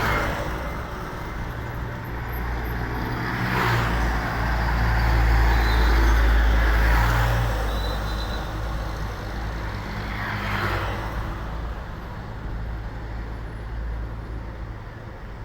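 A tour bus's diesel engine rumbling, growing louder to a peak midway and then easing off, with short hisses of air about 4 and 10 seconds in.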